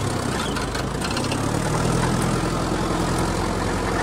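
Tractor diesel engine running steadily as it tows a leveling harrow across ploughed soil, with a brief dip in the engine note about half a second in.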